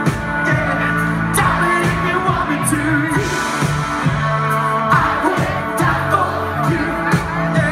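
Live band playing with electric guitars and drums, a singer's voice carrying the melody over a steady bass line.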